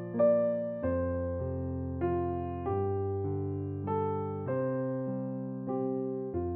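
Background music: an electric piano playing slow chords, each one struck and fading before the next.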